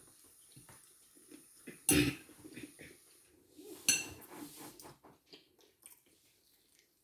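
Eating sounds: cutlery clinking and scraping on plates, with two louder sudden clatters about two and four seconds in.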